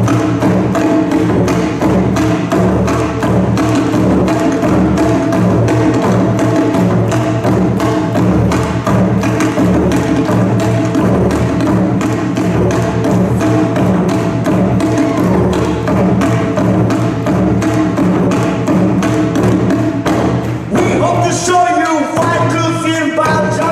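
Loud yosakoi dance music with a steady, fast percussive beat. Near the end a voice sings or calls out over it.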